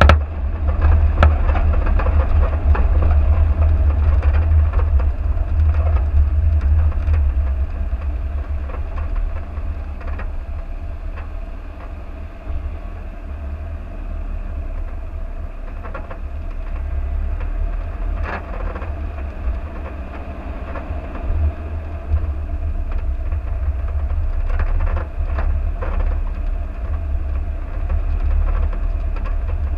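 Vehicle driving slowly along a rough dirt track: a steady low rumble with a faint steady hum above it and scattered knocks and rattles from bumps in the track.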